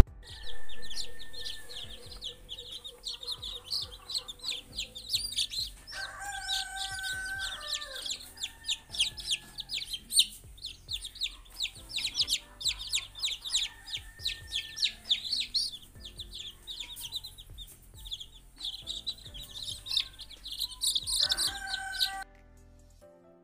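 A box of newly hatched chicks peeping, many short, high cheeps overlapping without pause, with a few lower, longer calls about six seconds in and again near the end. The sound cuts off suddenly just before the end.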